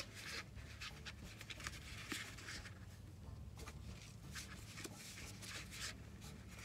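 Kraft-paper stand-up pouches rustling and crinkling as gloved hands shuffle and hold them up: a run of short, irregular papery scrapes over a low steady hum.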